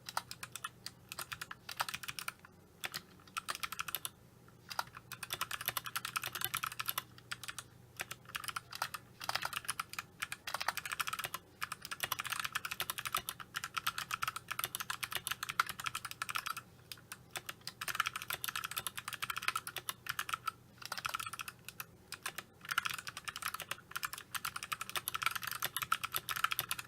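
Typing on a Vortex Pok3r mechanical keyboard with Kailh Box Navy clicky click-bar switches and thick PBT keycaps, keys bottoming out: rapid runs of sharp clicks broken by short pauses.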